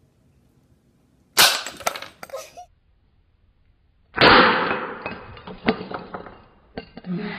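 Prank exploding lipstick going off with a sudden loud snap about a second and a half in. A second loud burst comes a few seconds later and fades away over a couple of seconds.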